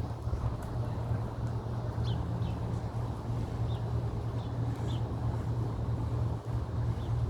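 Outdoor ambience: a steady low rumble under a haze of noise, with a handful of short, high bird chirps about two, four and five seconds in.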